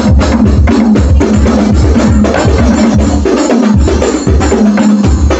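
Loud percussion-heavy music with a strong, repeated low bass beat, played through a sound system being tested.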